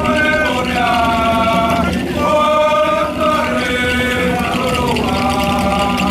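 Men's voices chanting together in long held notes, each sagging in pitch as it ends, with brief breaks between phrases: the chant accompanying a Papua New Guinea rooster dance.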